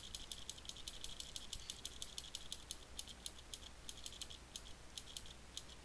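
Computer keyboard's Enter key pressed over and over, a fast, uneven run of clicks several times a second, accepting the default answer at each prompt of a compiler build's configuration questions. The clicks stop shortly before the end.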